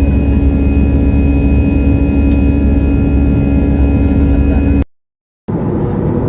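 Airliner cabin noise: the steady drone of jet engines with a low hum and a few held tones. About five seconds in it cuts off sharply to a half-second gap, then resumes as a rougher, noisier drone.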